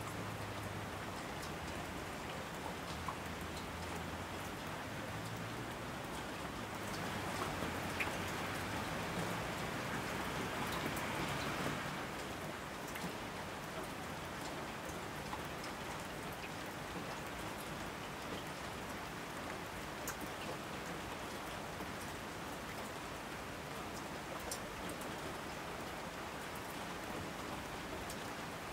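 Steady rain falling, with scattered ticks of single drops. It swells slightly louder for a few seconds around the middle.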